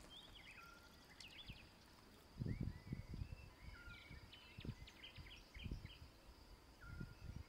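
Faint outdoor ambience: small birds chirping in short, scattered high notes over a faint steady high tone. Several soft low thumps or rumbles come and go through it, the strongest about two and a half seconds in.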